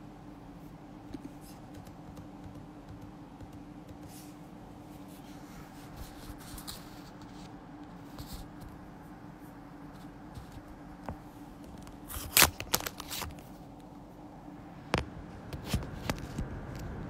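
Scattered taps, clicks and rustles of a phone being handled close to its microphone, over a steady faint hum of room tone. A burst of sharp clicks comes about twelve seconds in, and a few more about three seconds later.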